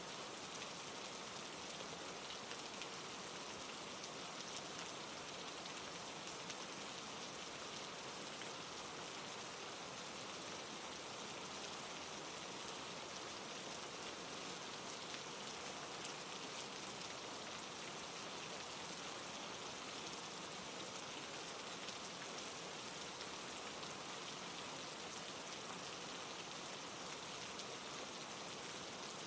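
Steady rain falling, an even hiss of many drops with faint individual patters.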